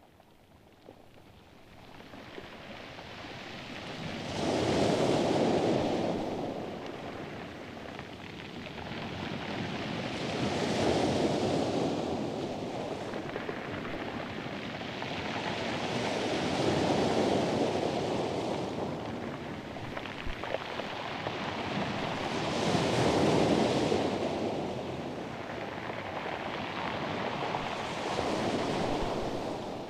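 Ocean surf washing in and drawing back in slow, even swells, one about every six seconds.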